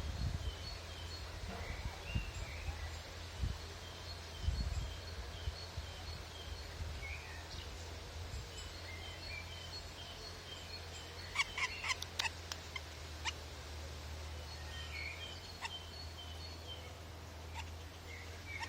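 Birdsong: a small bird repeats a high two-note call, high then lower, evenly over and over. About eleven seconds in comes a quick run of sharp taps, a woodpecker pecking at wood, and a few low thuds sound in the first five seconds.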